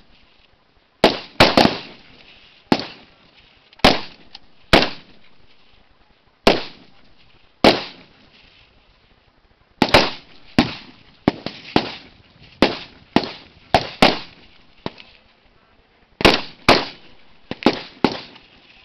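Rifle fire from several M16-pattern rifles on a firing line: about two dozen single shots at an irregular pace, each a sharp crack with a short echoing tail, coming faster and overlapping in the second half.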